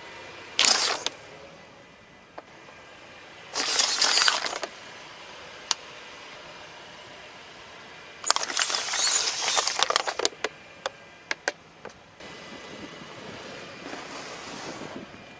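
Car tyre rolling onto small plastic bottles and crushing them on asphalt: three bursts of crackling, crunching plastic, the last trailing off in a run of sharp snaps and pops. Near the end there is a softer crunch as the tyre crushes a row of biscuits.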